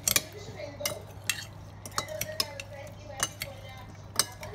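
Two metal spoons tossing a dressed tomato and cherry salad in a glass bowl: irregular clinks of metal against glass, roughly one or two a second, with soft stirring between them.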